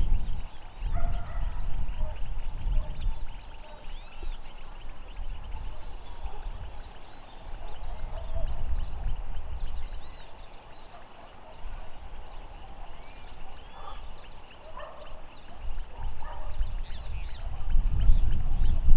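Open-air wetland ambience: wind buffeting the microphone, strongest at the start and again near the end, under a dense run of short high chirps and scattered bird calls.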